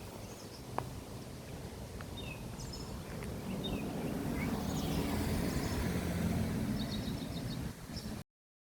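Outdoor street ambience: a vehicle engine hum that grows louder from about three seconds in, with scattered short bird chirps, cutting off abruptly near the end.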